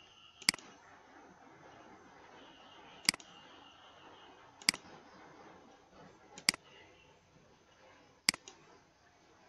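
Computer mouse clicks: about six single sharp clicks spaced one to two seconds apart, one of them a quick double, over faint room hiss.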